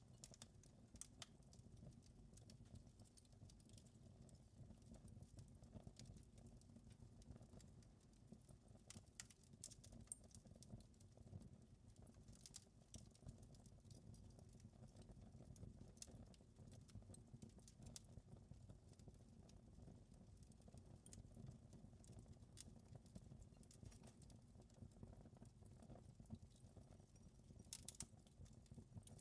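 Faint wood fire crackling: irregular small pops and snaps over a low, steady rumble of the flames.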